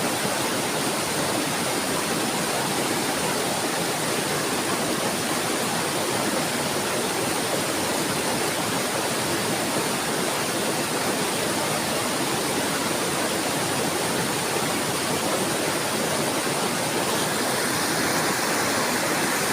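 Steady rushing of flowing water, an even, unbroken stream-like sound.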